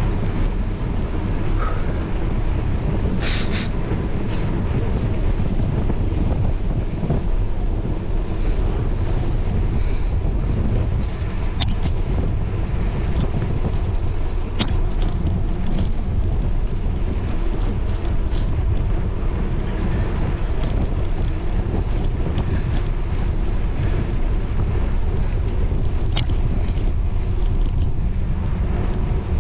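Steady wind buffeting a moving camera's microphone, with a low rumble from travelling along a tarmac path.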